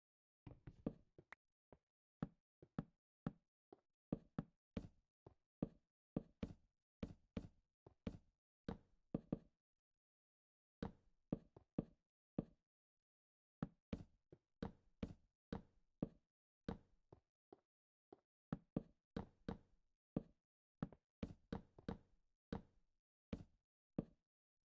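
An irregular series of sharp knocks or taps, many in quick pairs and clusters, with a pause of about a second near the middle.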